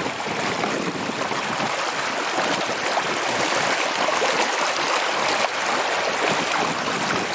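Fast-flowing upland stream rushing steadily over rocks, with a water bottle held under the surface to fill.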